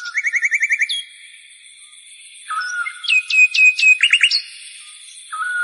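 A songbird singing: rapid trills in the first second, then a run of quick downward-swooping whistled notes about three to four seconds in.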